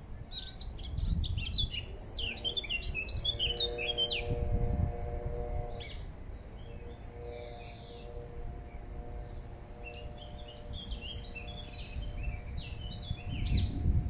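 Eurasian blackcap singing: fast runs of rapid high warbling notes through the first few seconds, then scattered notes and a clear downward-sliding note near the end, over a steady low hum and rumble.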